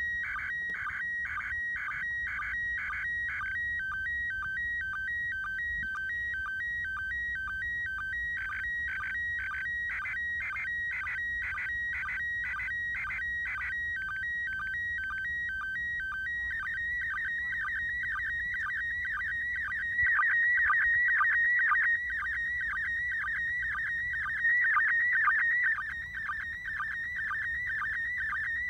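Slow-scan television (SSTV) image signal from the International Space Station, heard through a radio receiver as beeping tones around two thousand hertz. It starts as an even pulsing about twice a second. About halfway through it turns into fast warbling tones as the picture content changes, and it gets briefly louder twice near the end.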